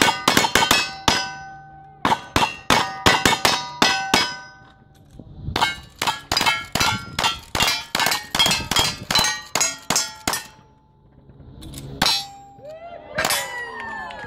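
Gunfire from single-action revolvers and lever-action rifles in quick strings, each shot answered by the ring of a struck steel target. Two short fast strings come first, then a longer, steadier string of rifle shots, then a few spaced shots near the end.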